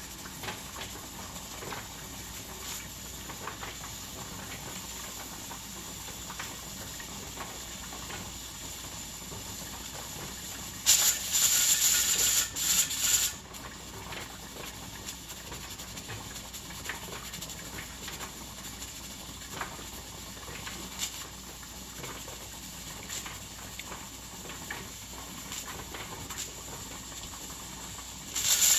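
Presto pressure canner at 15 pounds of pressure, letting out a steady hiss of steam. About 11 seconds in, its weighted gauge jiggles for about two seconds, rattling and venting a louder burst of steam. Each jiggle is the weight lifting to let off pressure; one to three jiggles a minute means the pressure is being held correctly.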